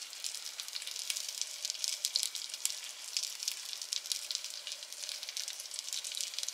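Food sizzling in a pan on a lit stove burner: a steady, dense crackle of fine pops.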